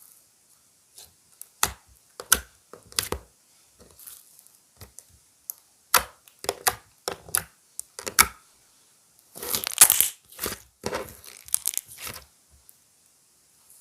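Clear slime being squeezed and stretched by hand, giving irregular sticky clicks and crackling pops, with a dense run of crackles about ten seconds in.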